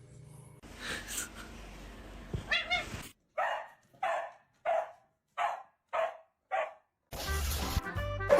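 Dog barking six times at an even pace, about one bark every two-thirds of a second.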